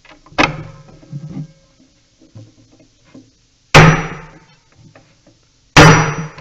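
Hammer striking a manual impact driver three times, each a sharp metallic blow with a short ring, the last two loudest, with light knocks between. Each blow turns the stuck square-headed screw a little, backing it out.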